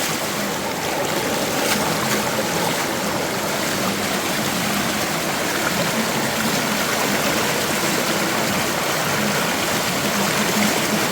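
Fast-flowing stream water rushing steadily over rocks at the foot of a waterfall.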